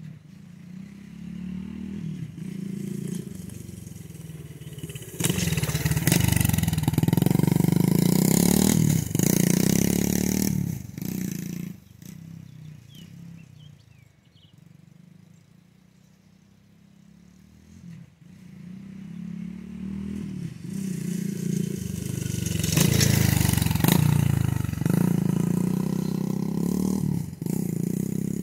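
Dirt bike engine getting louder as the bike comes close and revs past, first about five seconds in and again about twenty-two seconds in, falling faint in between as it rides off.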